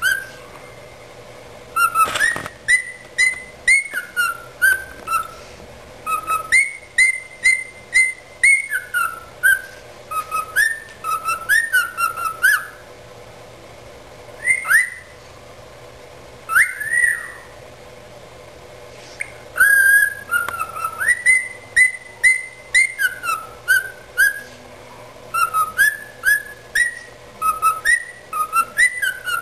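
Cockatiel whistling its natural species song: short whistled notes that rise and fall, strung together in quick phrases. The song breaks off for a second or two twice, around the middle.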